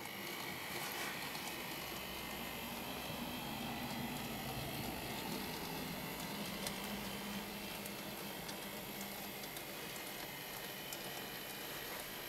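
N gauge model Class 37 locomotive running along the track: a steady whirr from its small electric motor and wheels on the rails, with a few faint ticks.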